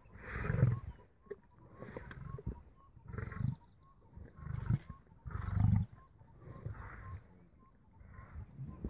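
Male lions growling over a carcass as they feed, in a string of short, rough growls about every second or so. The loudest come about half a second in and again just past the middle.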